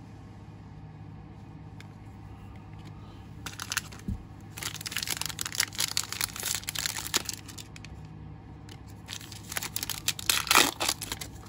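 A foil trading-card pack being torn open by hand, its wrapper crinkling and crackling in two spells after a few quiet seconds, with a low bump just before the first.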